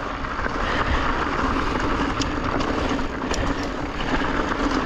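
Mountain bike rolling along: a steady rush of tyre and wind noise, with a few faint sharp ticks.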